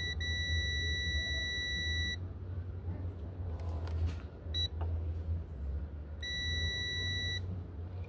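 Digital multimeter's continuity buzzer beeping as the test probes close a circuit: a steady high beep of about two seconds, a short blip about four and a half seconds in, and another beep of about a second near the end.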